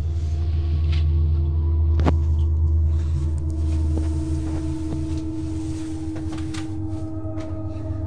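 Ominous horror-film drone: a deep, steady rumble with long held tones above it that swells about two seconds in and then settles. A sharp click sounds about two seconds in, with a few fainter clicks later.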